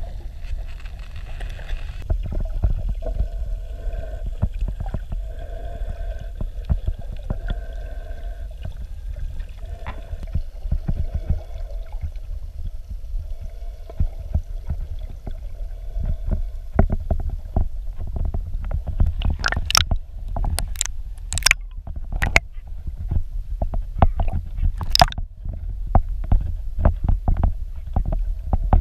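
Underwater sound picked up by a diving camera: a steady low rumble of water moving against the camera housing, with a faint pulsing hum in the first half. About two-thirds of the way through comes a run of sharp clicks and pops.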